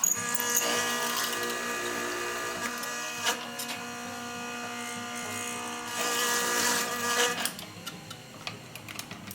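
An electric power tool's motor running steadily, starting abruptly and stopping after about seven and a half seconds.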